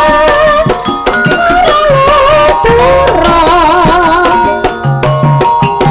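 Javanese gamelan music accompanying the Emblek dance: frequent hand-drum strokes under steady held metallophone tones, with a wavering melody line on top.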